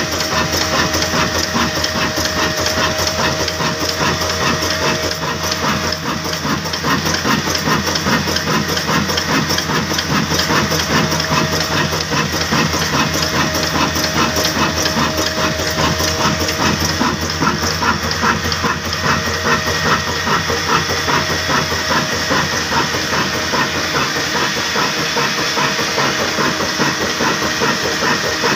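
Mughal Nazir 22 hp desi diesel engine running steadily at close range, a fast, even clatter of strokes over a constant hiss.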